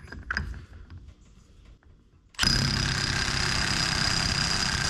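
An impact wrench hammering steadily, starting about halfway in, as it tightens the pulley nut on a rebuilt John Deere mower deck spindle at its second-highest torque setting. The nut turns a little and then stops turning under the blows. Before it, light clicks as the socket is fitted onto the nut.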